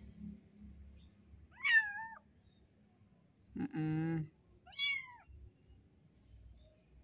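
Month-old kittens meowing: two high meows that fall in pitch, about three seconds apart, the first the loudest, with a lower, longer call between them.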